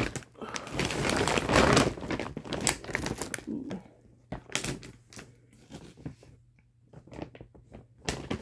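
Plastic shopping bag rustling and crinkling as groceries are pulled out of it. It is loudest in the first couple of seconds, then thins out to scattered crackles and light knocks.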